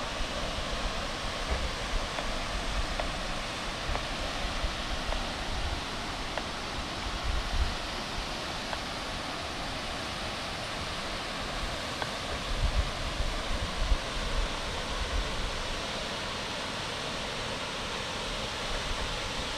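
Steady rushing of water, an even hiss with no break, with a few brief low rumbles on the microphone about a third of the way in and again past the middle.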